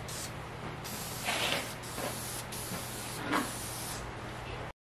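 Aerosol spray paint can spraying in short hissing bursts with brief breaks between them. The sound stops abruptly near the end.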